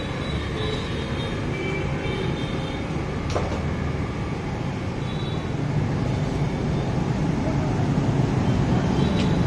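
Steady low rumble of vehicles going by, growing a little louder about six seconds in, with a sharp click about three seconds in.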